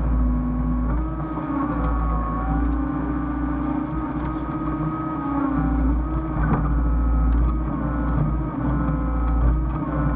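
Hyundai excavator running steadily, a deep engine rumble with whining tones that step up and down in pitch as it works, and a single sharp knock about six and a half seconds in.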